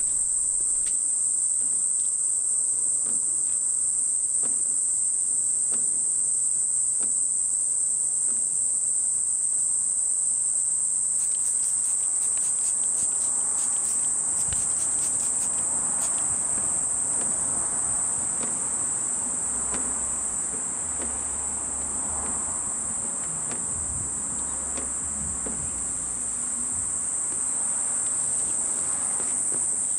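Steady high-pitched drone of insects calling outdoors, the loudest sound throughout. About halfway through, a quick run of short sprays from a trigger spray bottle.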